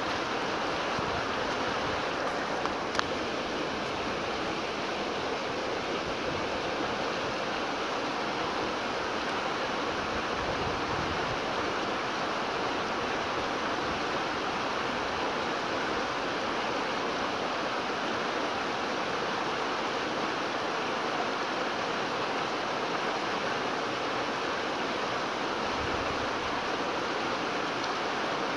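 Steady rushing of flowing creek water, with a single sharp click about three seconds in.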